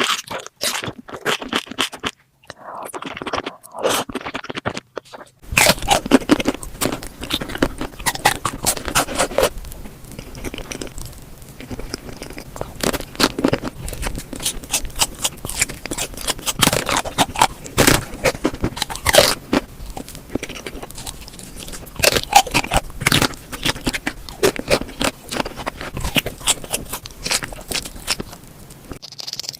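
Close-miked eating: crunchy bites and chewing, with scraping, as a dense run of sharp crunches. The crunches thicken and grow louder about five seconds in.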